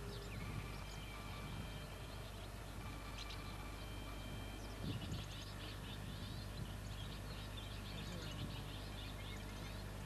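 Small birds calling with short high chirps that become a dense chattering from about halfway in. There is one low thump near the middle.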